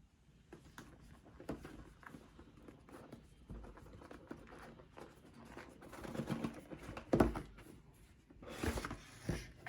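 Keyboard's cardboard packaging being handled and opened: scattered rustling, scraping and light knocks, louder in clusters about six seconds in and again near nine seconds.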